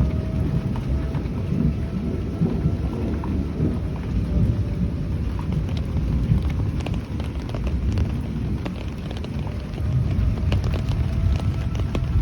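Heavy storm rain with a loud low rumble. Faintly underneath, a distant outdoor tornado warning siren wails, its tone slowly rising and falling.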